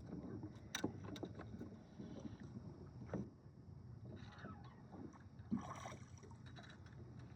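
Faint, steady low noise of a small fishing boat on the water, with a few light clicks and knocks about a second in and again around three seconds in.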